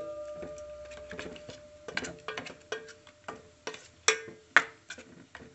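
Metal spoon stirring thick moong dal batter in a stainless steel bowl, clinking against the bowl's sides in irregular strokes about twice a second. Each strike leaves a short metallic ring, and a steadier ring hangs on through the first couple of seconds.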